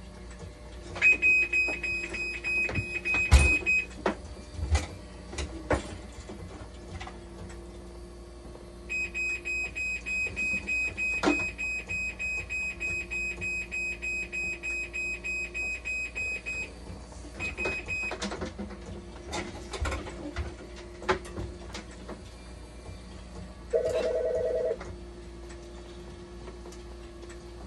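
Hemodialysis machine alarm beeping rapidly, about four high beeps a second, in two long stretches and a short burst, with scattered clicks and knocks of hands working on the machine. Near the end, a single lower tone sounds for about a second.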